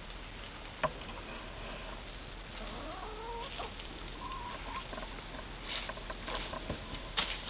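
Hens making soft, wavering clucking calls in the middle, with a sharp tap about a second in and a few more short taps near the end.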